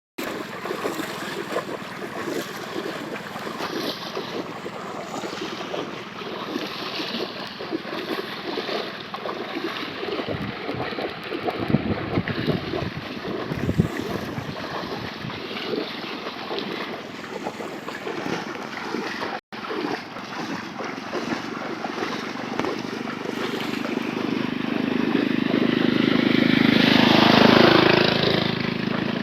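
Rushing floodwater with scattered knocks and splashes. An engine comes closer, gets steadily louder to a peak shortly before the end, then recedes. The audio cuts out for an instant about two-thirds of the way through.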